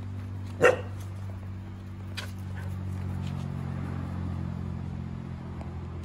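An Akita dog gives a single sharp bark about half a second in, over a steady low hum.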